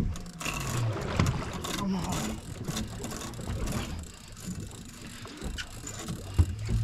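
Saltwater fishing reel being cranked in on a hooked fish, its gears clicking irregularly over steady boat and water noise.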